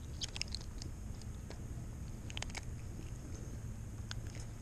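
A few faint, short clicks and ticks over a low, steady background rumble: a small cluster at the start, two more about halfway through and one near the end.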